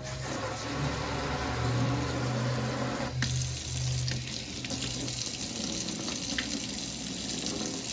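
Kitchen tap running into the sink while something is rinsed under it, a steady rush of water. A low hum lies under it for the first five seconds or so.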